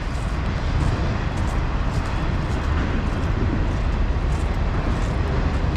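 Train passing close by: a steady, loud rumble.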